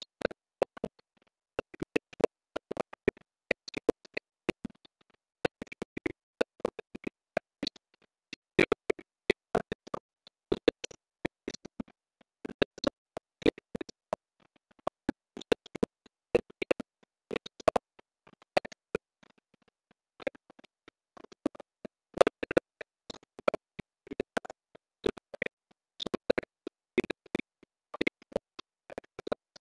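Computer keyboard being typed on: irregular runs of short key clicks with brief pauses between them.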